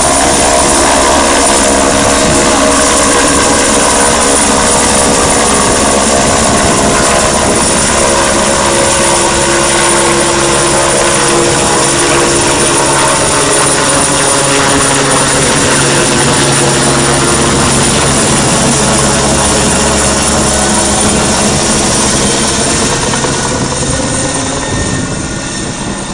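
Light helicopter climbing away overhead: loud, steady rotor and engine noise, with some of its tones sliding in pitch partway through, fading over the last few seconds as it moves off.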